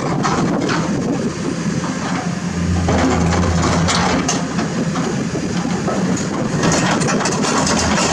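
Komatsu PC210-10 excavator's diesel engine running under working load. The drone grows stronger about two and a half seconds in and again near the end. A few short knocks sound over it.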